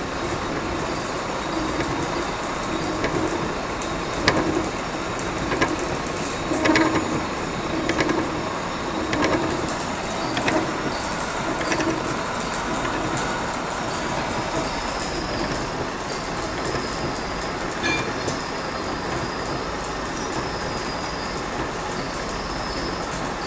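Steady mechanical running noise with a regular knocking, a little under two knocks a second, that fades into a steadier sound about halfway through.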